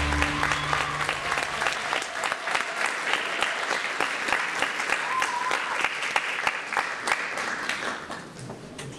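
Audience applauding at the end of a dance performance, with a few voices calling out; the last notes of the music die away in the first couple of seconds and the clapping fades near the end.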